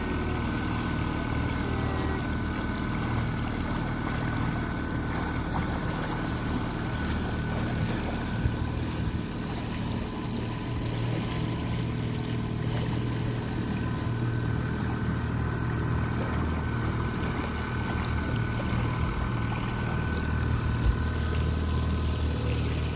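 A motor boat's engine running steadily while under way: a constant low hum with a thin, steady whine above it.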